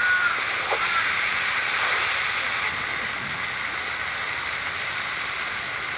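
Gram seeds (black chickpeas) sizzling in hot oil in an iron kadai, a steady hiss as they fry with onion and green chili.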